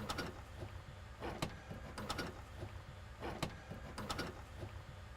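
Faint, irregular clicks and knocks as an old ignition switch and its wiring are worked loose and pulled out from behind a car's dash.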